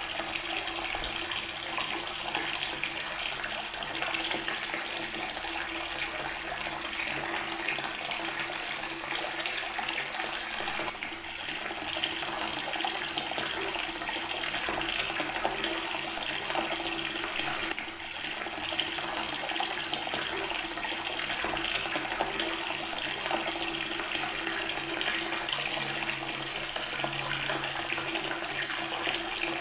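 Water tap running steadily, its stream splashing onto stone, with a faint steady hum underneath.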